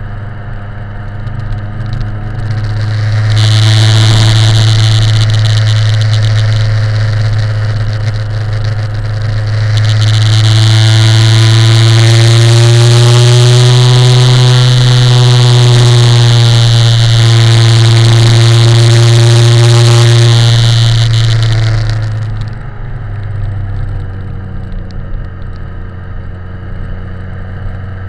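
BMW K1100LT motorcycle's inline-four engine pulling on an uphill climb, a steady hum that grows louder a few seconds in, rises a little in pitch and eases back in the middle, then drops back near the end. A loud rushing hiss rides along with the louder stretch.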